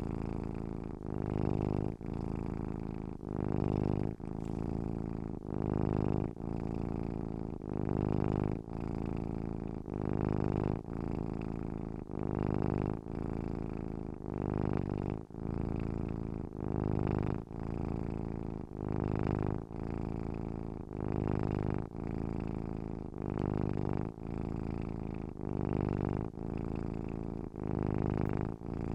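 Domestic cat purring steadily, the purr swelling and easing with each breath in and out, a little under one cycle a second.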